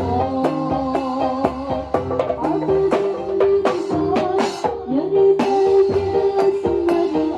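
Modern marawis ensemble playing: hand drums strike a quick, even rhythm under a held melodic line.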